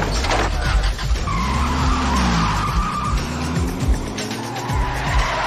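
Car engine revving with the pitch rising and falling, and tires squealing twice in long skids: once from about a second in, and again near the end.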